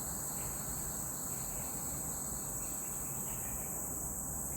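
Steady, unbroken high-pitched chorus of insects in swampy woods, with a low even background noise beneath it.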